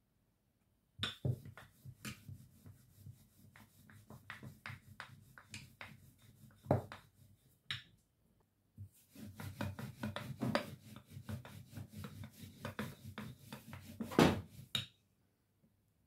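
Wooden handled rolling pin rolling out dough on a floured worktop: a fast run of rubbing and clicking strokes in two stretches with a short pause about eight seconds in. A couple of louder knocks, the loudest near the end.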